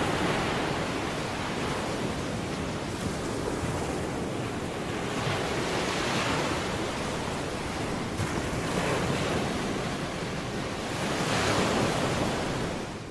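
Ocean surf washing onto a shore, a steady rush that swells and eases every few seconds and fades out at the very end.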